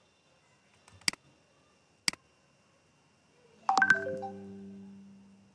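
Two sharp clicks about a second apart, then a short electronic chime of several tones together that starts abruptly and fades out over about a second and a half.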